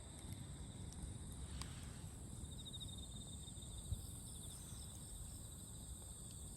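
Insects trilling steadily at a high pitch, with a pulsing chirp partway through, over a low rumble. A faint click comes about a second and a half in, and a soft thump near four seconds.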